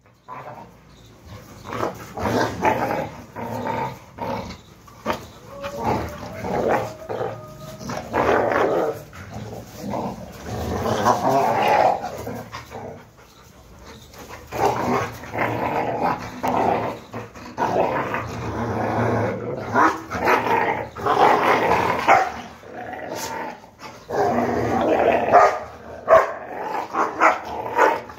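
Two Rottweilers growling and panting hard in repeated rough bursts while one mounts the other.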